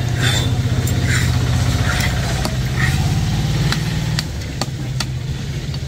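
Several sharp chops of a cleaver cutting a large fish on a wooden log block, over the steady low hum of an idling engine.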